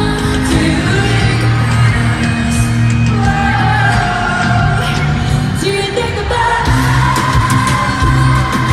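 Live pop song in an arena, heard from the crowd: a female vocal group sings over a loud band and backing track with a steady bass.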